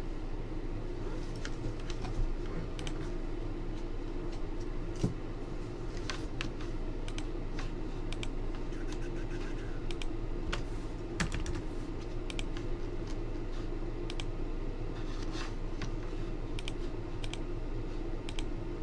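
Typing on a computer keyboard: irregular, scattered keystrokes and clicks over a steady low room hum.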